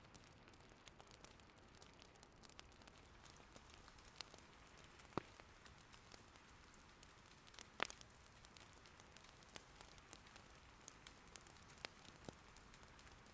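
Faint steady rain with scattered crackles and pops of wood burning in an irori hearth fire; two louder pops come about five and eight seconds in.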